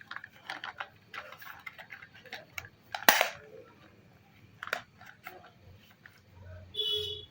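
Plastic toy guns being handled: a string of light clicks and clacks, one sharper and louder clack about three seconds in, and a short electronic tone near the end.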